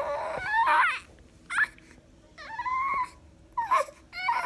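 Newborn baby fussing: several short, wavering whimpering cries, with a longer held cry about two and a half seconds in.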